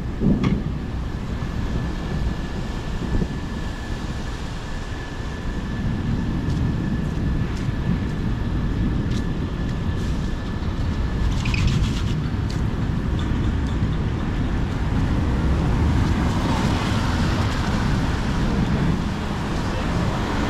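Steady low rumble of road traffic on a rainy street, with a thin steady whine through the first half and a short cluster of sharp clicks about halfway through.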